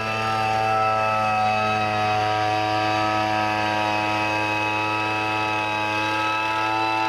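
Small engine of a two-man mechanical tea harvester running steadily at a constant high speed while the cutter bar is carried over the tea bushes.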